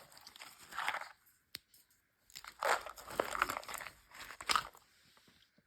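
Chocolate crunching close to the microphone in several short crackly bursts, with a single sharp click about a second and a half in.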